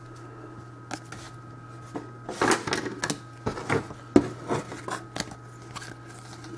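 Cardboard football trading cards being flipped through and shuffled by hand, with a run of irregular snaps and rustles that are busiest in the middle, over a steady low hum.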